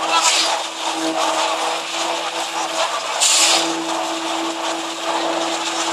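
Steady mechanical hum of concrete-placing equipment, a concrete pump and poker vibrators working fresh concrete into a rebar raft, swelling and easing in level. A short burst of hiss comes about three seconds in.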